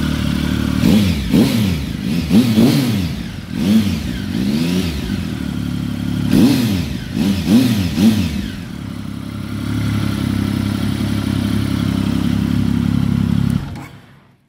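2007 Triumph Tiger 1050's three-cylinder engine idling, with the throttle blipped about ten times in two spells, each blip a quick rise and fall in pitch. It settles back to a steady idle and is switched off near the end.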